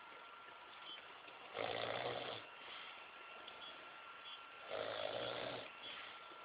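Snoring in slow, even breaths. Two snores, each just under a second long, come about three seconds apart: one about a second and a half in, the next about a second before the end.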